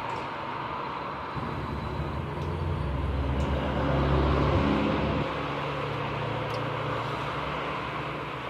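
A motor vehicle's engine running, growing louder about a second and a half in and loudest around the middle, then settling to a steady hum.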